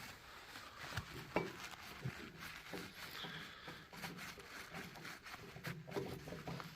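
Scattered clicks and light knocks of hand tools and loose metal parts being worked during disassembly of a milling machine's knee, with one sharper click about a second and a half in.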